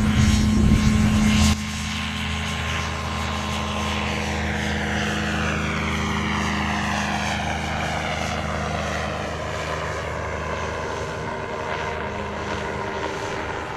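Engine and pusher propeller of an Evolution RevX ultralight trike at takeoff power during a touch-and-go, a steady drone. It steps down suddenly in level about a second and a half in, then holds steady and fades a little as the trike climbs away.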